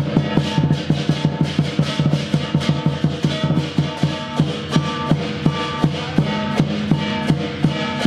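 Chinese lion dance music: a large drum beating a fast, steady rhythm, with ringing pitched tones over it.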